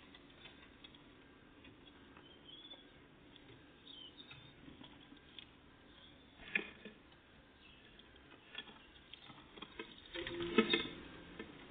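Great tits and blue tits at a peanut feeder: light tapping and scratching as they peck at and pull out peanuts. There is a sharp click about six and a half seconds in and a louder scuffle of knocks near the end, with a few faint high chirps in the first few seconds.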